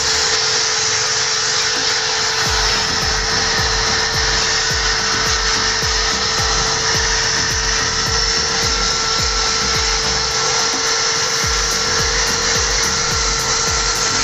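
Steady running of a car-wash vacuum cleaner with a constant whine, cleaning a car's trunk carpet through a hose nozzle. Background music with a steady beat plays over it.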